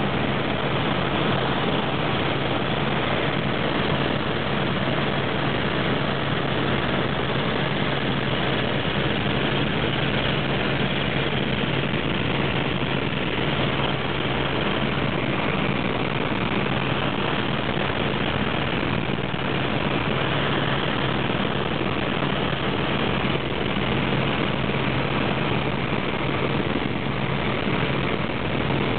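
Helicopter engine and rotor noise heard inside the cabin in flight: a constant drone with a steady low hum under it.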